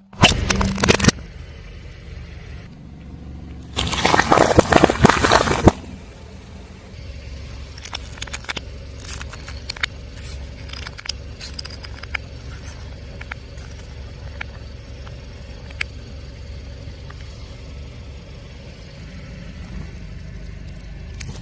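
A car tyre rolling over and crushing brittle objects: two loud crunching bursts, one right at the start and a longer one about four seconds in. After them the car's engine rumbles low while scattered small crackles and snaps go on.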